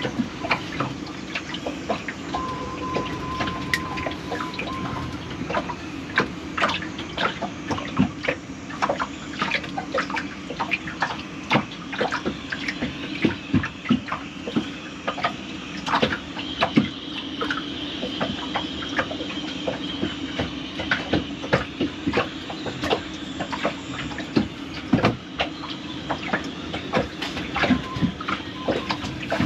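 Many irregular small clicks and taps of metal parts being handled while a cotter pin is worked by hand, over a steady low hum, with water trickling and dripping.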